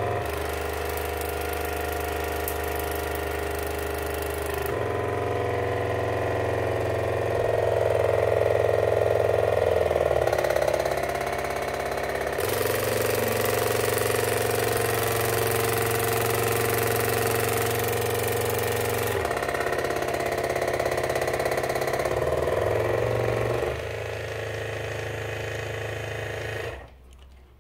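Waterpik Aquarius Professional water flosser running at a high pressure setting: a steady pump-motor hum with the hiss of its water jet spraying into a sink. The hum's pitch and the spray hiss shift several times, and the flosser cuts off about a second before the end.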